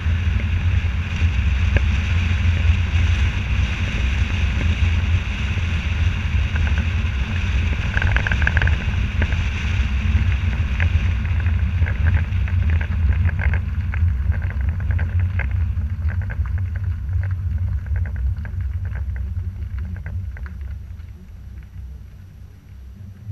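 Steady low wind rumble and road noise from a moving car, picked up by a camera mounted on the outside of the car. It dies down over the last few seconds as the car slows to a stop behind traffic.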